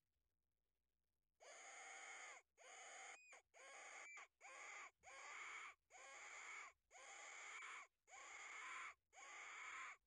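A person breathing hard close to the microphone: eight quick, even breaths in a row, starting about a second and a half in.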